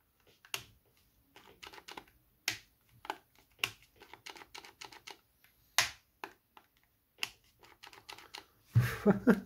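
Scattered light plastic clicks and taps as the cheap cordless reciprocating saw is handled, with no motor running: its motor has burnt out. A brief voice-like sound comes near the end.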